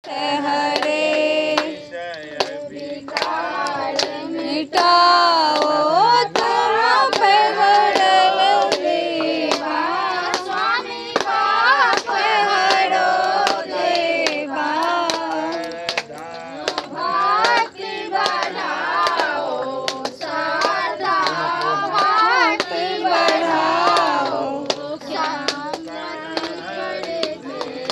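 Group of voices singing a devotional aarti hymn, accompanied by steady rhythmic hand clapping.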